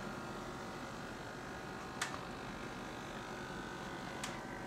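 Wheeled robot's electric drive motors running steadily as it turns and drives along, with a low hum and two short sharp clicks about two seconds apart.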